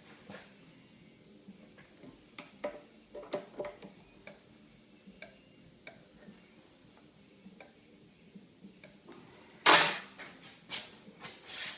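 Scattered light clicks and taps of metal tools and parts being handled, with one short, loud rasping burst of noise near the end and a few smaller ones after it.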